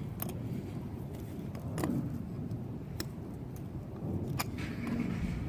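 A T-handle water meter wrench turning the meter's ball valve, giving a few sharp metal clicks and clinks over a steady low rumble.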